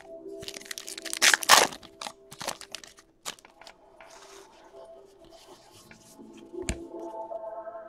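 Trading cards rustling, crinkling and clicking as they are handled and flipped through by hand, loudest about a second in, over faint background music.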